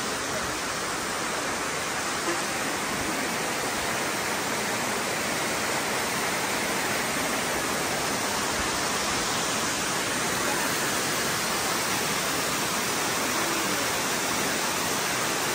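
Amicalola Falls waterfall: a steady rush of water cascading over rock.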